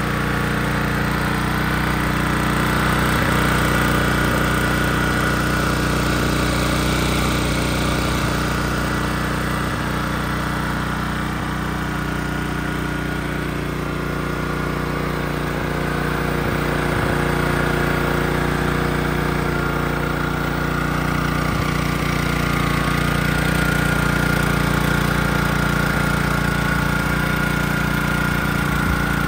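Wacker GP2500 portable gas generator with its Honda engine running steadily at constant speed.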